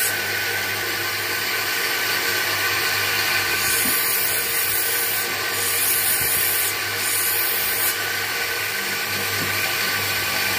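Bench grinder running with a steady motor hum while a small synthetic cat's-eye stone is held against the spinning wheel and shaped. The grinding noise swells and eases as the stone is pressed on and lifted, and is lighter near the end.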